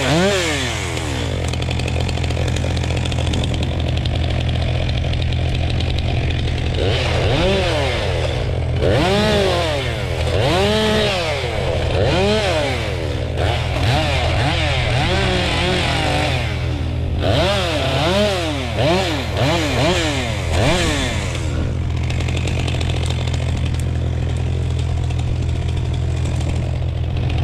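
Komatsu bulldozer's diesel engine running steadily, with a string of short whines that rise and fall in pitch, about one a second, through the middle of the stretch.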